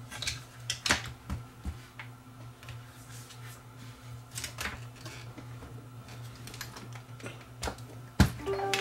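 Plastic camera body parts of a Canon XL2 clicking and knocking as they are handled and fitted back together, with irregular taps and one louder knock near the end, over a steady low hum.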